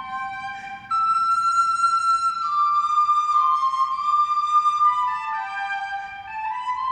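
Music: a slow melody of long held notes, with a louder entry about a second in.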